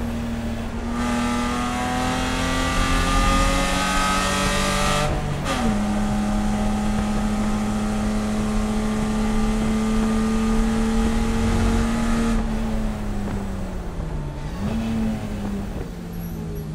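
BMW E30 race car's straight-six engine at full throttle, its pitch rising, then dropping sharply at an upshift about five seconds in. It holds a high, nearly steady note, then winds down off the throttle near the end, with a quick rev blip on a downshift.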